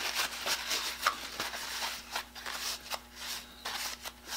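A cloth rubbing and rustling against a small nickel-plated drill chuck as it is polished by hand, with irregular small clicks and taps of handling.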